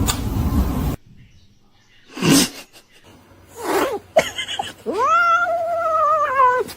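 A cat yowling: one long drawn-out meow, held for nearly two seconds near the end, after two short rough noisy sounds a few seconds earlier. A loud steady noise fills the first second and cuts off suddenly.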